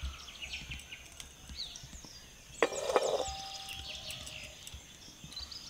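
Birds chirping and insects buzzing steadily in the background, with a low rumble. About halfway through comes one short clatter, followed by a brief ringing tone.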